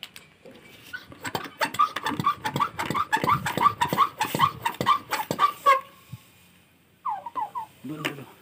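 Hand pump of a pressure garden sprayer being worked fast, a clicking squeak on every stroke at about four to five strokes a second, pressurizing the tank; it stops suddenly, and a few shorter squeaks follow about a second later.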